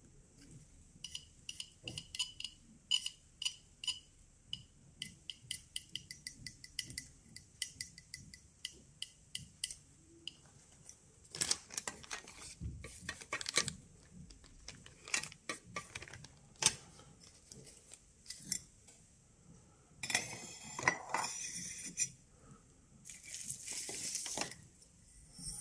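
A Geiger counter clicking irregularly, each count a sharp click with a short high chirp, as a Geiger–Müller tube under test registers counts. From about eleven seconds in, plastic bag rustling and metal tubes clinking take over as the tubes are handled.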